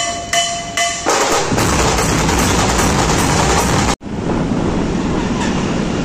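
Loud, dense dhol-tasha drumming, with a held pitched tone over about the first second. About four seconds in it cuts off suddenly and gives way to steady street traffic noise.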